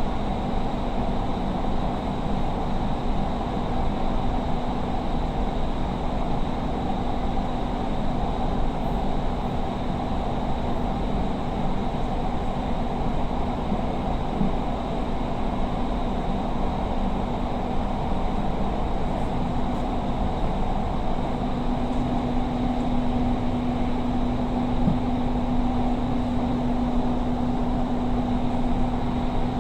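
Steady running noise inside a Doha Metro train car moving between stations: an even rumble with a low steady hum that grows louder about two-thirds of the way through.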